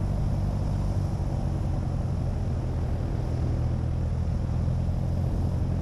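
Cessna 172's piston engine and propeller running steadily in flight: an even low drone with a light hiss of airflow over it.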